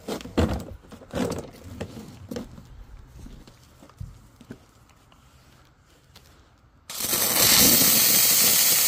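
A few knocks and rustles of the hose being handled, then about seven seconds in a McCulloch steam cleaner's nozzle opens with a sudden, loud, steady hiss of steam; the first burst typically spits a little water.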